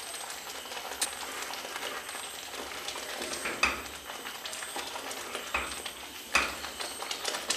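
Spatula stirring a thick, simmering curry gravy in a pan, with a few separate scraping strokes against the pan over a soft bubbling sizzle.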